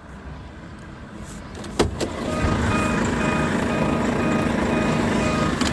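Volvo truck's air suspension being adjusted with the handheld level-control remote: a click, then a steady rushing noise that builds up, with a short beep repeating about twice a second.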